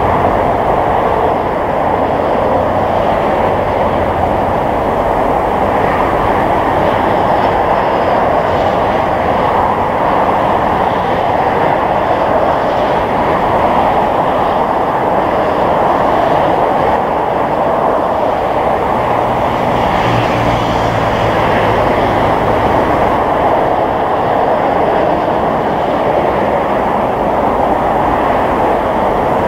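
Airbus A350-900's Rolls-Royce Trent XWB turbofans on final approach: a steady jet rush that holds an even level throughout, with a faint low hum joining for a few seconds about twenty seconds in.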